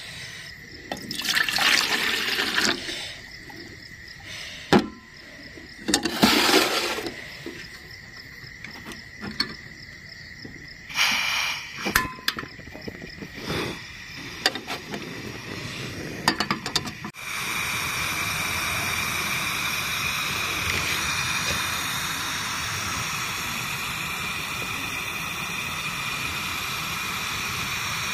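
Water poured into an aluminium camping pot in three short splashy pours, then a few clicks and metal knocks as the pot and portable butane canister stove are handled. From about two-thirds of the way through, the stove's burner hisses steadily under the pot.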